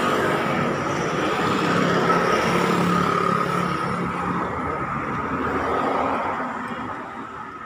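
A motor vehicle running close by, its noise swelling a couple of seconds in and dying away toward the end, over a steady high whine.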